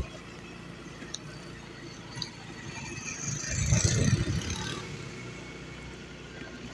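Motorcycle engine running steadily while riding, with road and wind noise. A louder swell of rumble and hiss builds and fades about halfway through.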